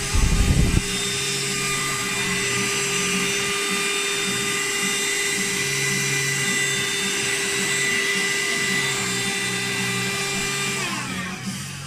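Small handheld cordless vacuum cleaner running with a steady high whine and airflow noise, a loud low rumble in the first second. Near the end it is switched off and the whine falls in pitch as the motor spins down.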